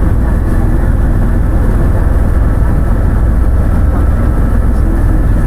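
Helicopter in flight: a steady, loud low rumble of engine and rotor that does not change.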